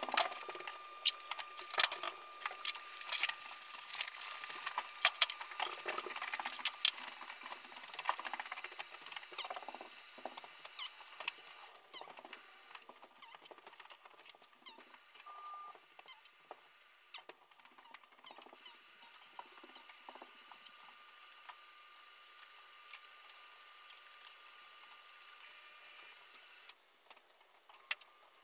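Irregular clicks and light rustling from containers and small items being handled at a workbench while epoxy is got ready. The clicks are dense for the first several seconds and thin out later, over a faint steady high tone.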